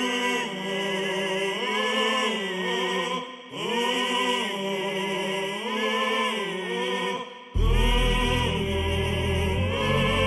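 Background music: a melody in long held, gliding notes over several phrases, with a deep bass coming in about seven and a half seconds in.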